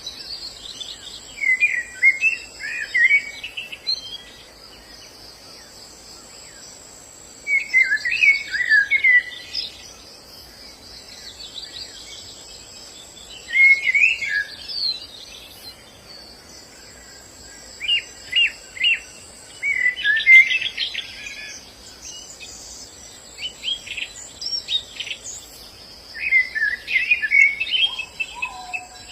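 White-eyes (pleci) singing: short, quick twittering phrases that come in bursts every few seconds, about seven in all, over a steady high insect buzz.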